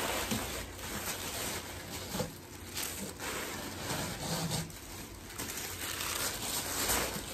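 Brown honeycomb kraft-paper packing and paper wrapping rustling and crinkling as they are handled and pulled out of a cardboard box, with irregular crackles.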